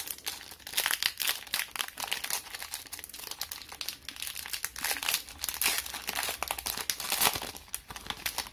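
Foil wrapper of a Yu-Gi-Oh! booster pack crinkling as it is handled and torn open by hand, in a dense run of irregular crackles.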